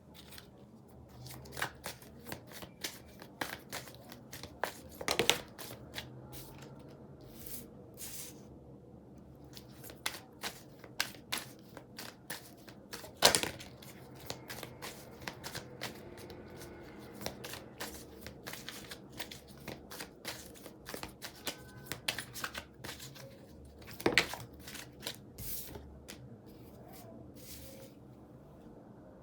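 Tarot cards being shuffled and handled: a run of irregular soft flicks and taps, with a few sharper snaps about five, thirteen and twenty-four seconds in.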